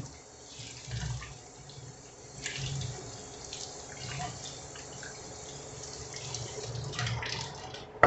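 Kitchen tap running into the sink while hands are washed under it, the water splashing unevenly as the hands move.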